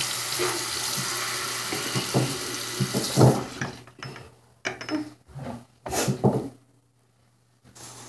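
Water tap running steadily, then shut off about three seconds in, followed by a few short knocks and clatters.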